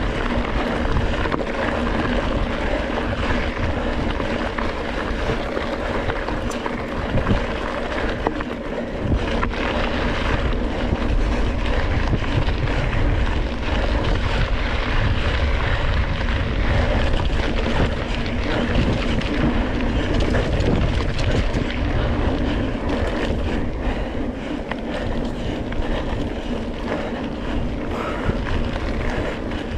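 Wind buffeting the camera microphone over the steady rumble of a single-speed mountain bike riding a dirt trail, with scattered knocks from bumps.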